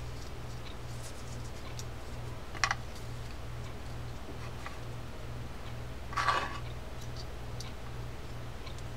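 Small metal clicks, then a short scraping rattle about six seconds in, from parts of a D.A.M. Quick spinning reel being handled and fitted. A low hum pulses evenly underneath.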